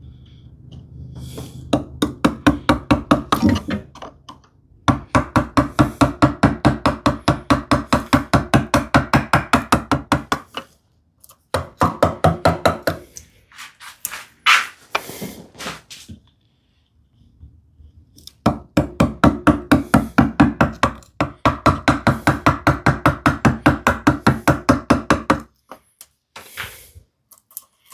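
A chisel being tapped in rapid runs of light blows, about four or five a second, each run lasting several seconds with pauses between, chopping a groove down to depth in wood.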